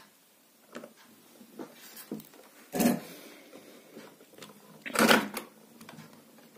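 Handling noise from a woofer amplifier circuit board and hand tools being moved about: scattered light clicks and taps, with two louder bumps about three and five seconds in.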